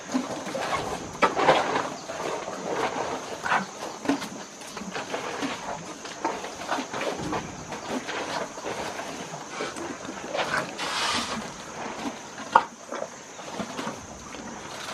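Asian elephants' trunks rummaging through plastic baskets of bananas and sugarcane: irregular rustling, clattering and crunching of the food against the basket, with one sharp crack near the end.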